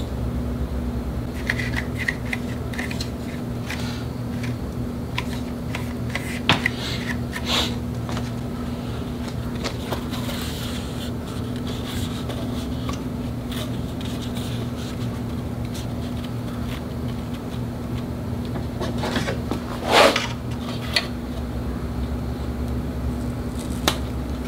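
Scattered rustling, scraping and tapping as adhesive-backed foam strip is peeled and pressed along the edge of a sheet-metal fan shroud, over a steady low hum. A louder knock or rustle comes about twenty seconds in.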